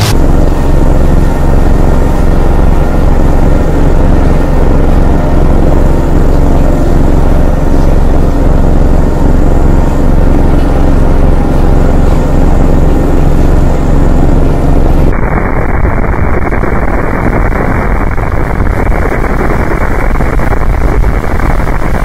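Harsh noise music: a loud, dense wall of distorted noise over a steady low hum with faint held tones. About two-thirds of the way in it switches abruptly to a different, muffled wall of noise with the highs cut off.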